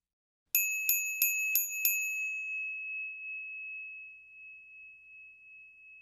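A small bell struck five times in quick succession, about three strikes a second, then its single high ring dying away slowly over several seconds.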